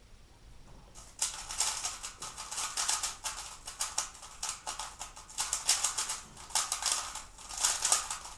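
3x3 Rubik's speedcube being turned very fast: a dense, uneven run of plastic clicking and clacking that starts about a second in. This is the execution phase of a blindfolded solve, the cube turned from memory.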